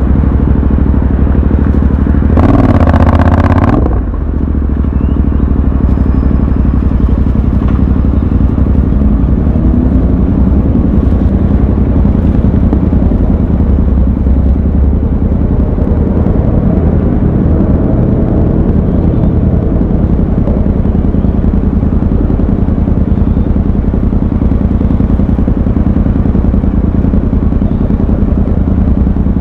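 Royal Enfield Continental GT 650's 648 cc parallel-twin engine running steadily under a riding motorcycle. About three seconds in, a short, louder surge rises and falls away.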